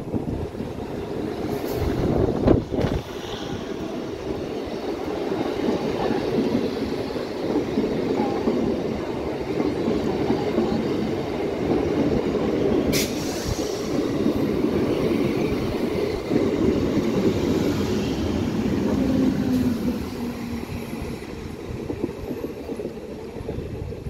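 MEMU electric multiple unit coaches rolling past close by: a steady rumble of wheels on rail. There is a loud thump about two and a half seconds in and a sharp click about halfway through.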